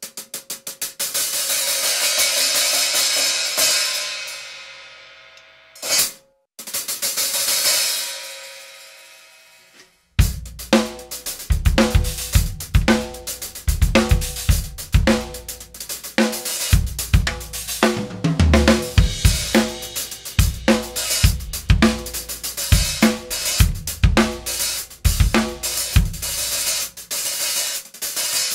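A 14-inch hi-hat with a cracked cymbal that has been repaired, played after the repair. In the first part it is struck rapidly, building into a loud wash that dies away; a short hit follows near 6 s and then a second wash that dies away. From about 10 s a steady drum-kit groove runs on, with bass drum, snare and the hi-hat.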